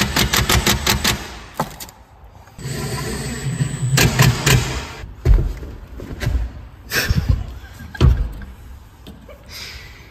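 Cordless impact driver running screws into a battery's wall-mount bracket, its motor whine breaking into rapid hammering as each screw seats, twice. Then a few heavy thuds as the battery cabinet is rocked against the bracket to test that it holds.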